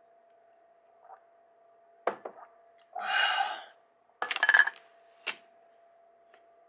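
Coins and small objects handled on a desk: a sharp knock, a short scraping sound, then a quick run of metallic clinks from the coins, the loudest part, and one last knock.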